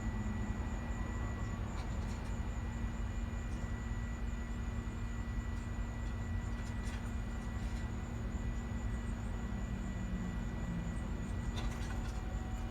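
2018 Cadillac ATS engine idling steadily, with its codes just cleared and no misfire showing.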